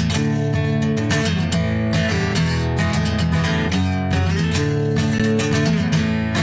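Acoustic guitar strummed steadily through chord changes, with quick even strokes.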